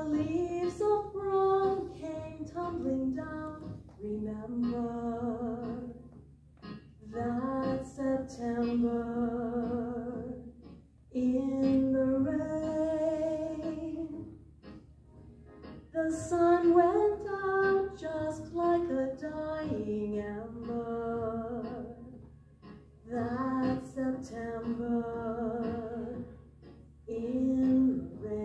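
Show choir singing a slow song, mostly women's voices, in held phrases of a few seconds with short breaths between them.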